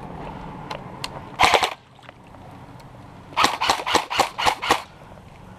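Airsoft gun firing: a short rapid burst about a second and a half in, then a run of about eight quick shots a couple of seconds later, with faint scattered clicks between.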